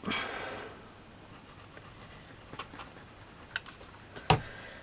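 A breath out about a second long, then a few faint taps and clicks of handling small wooden skewers and a chipboard model, with one sharper tap near the end.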